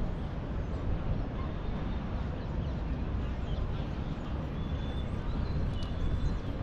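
Open-air city-square ambience: a steady low rumble of distant traffic and wind, with faint scattered high chirps.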